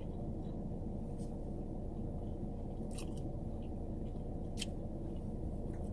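Chewing and biting into a Subway sandwich: soft mouth noises with a few brief crisp clicks, over a steady low hum.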